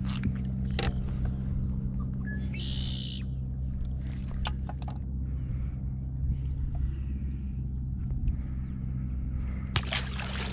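A steady low mechanical hum with scattered handling knocks and clicks, then a sharp splash near the end as a largemouth bass is dropped back into the water beside the boat.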